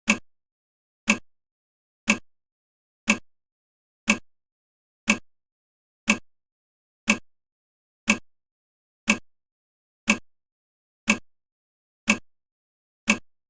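Countdown timer ticking, one sharp clock-style tick each second with dead silence between.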